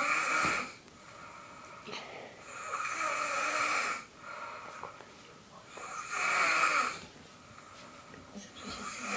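Snoring in a steady rhythm, one snore about every three seconds, each lasting about a second, with quieter breathing between.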